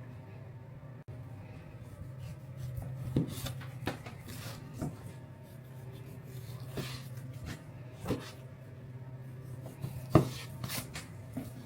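A series of irregular knocks and scrapes, about eight, over a steady low hum, the loudest knock near the end.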